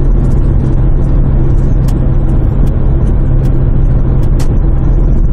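Kia Grand Carnival's diesel engine and road noise heard from inside the cabin while driving: a steady low engine drone holding one pitch.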